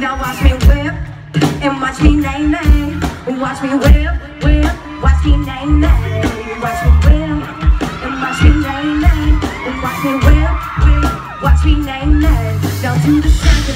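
Live country-pop band music with a woman singing lead into a microphone, over a steady beat with electric and acoustic guitars.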